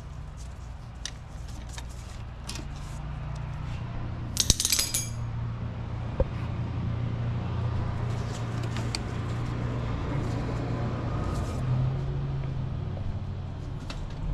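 Metal hand tools clicking and clinking against car parts, with a short metallic rattle about four and a half seconds in and a sharp click soon after, over a steady low hum.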